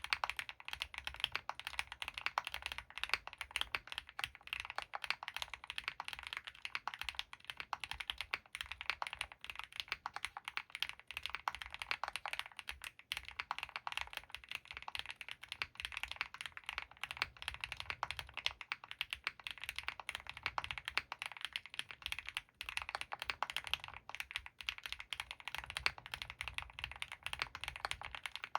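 Continuous fast typing on an Owlab Mr.Suit mechanical keyboard with Krytox 205g0-lubed Gateron CJ linear switches, a polycarbonate plate and GMK keycaps: a dense run of keystroke clacks with a deeper thock under them.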